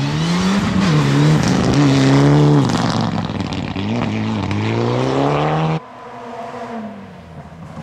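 Rally car engine revving hard on a gravel stage, its pitch repeatedly climbing and dropping with gear changes and throttle lifts, with a loud rushing noise over it in the first few seconds. About six seconds in the sound drops abruptly to a fainter engine further off.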